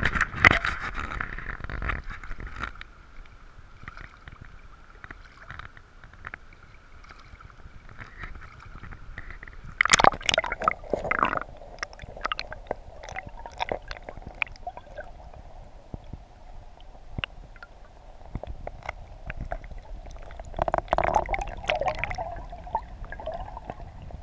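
River water heard through a submerged action camera's waterproof housing: muffled gurgling and sloshing with many scattered sharp clicks, busiest about ten seconds in and again around twenty-one seconds.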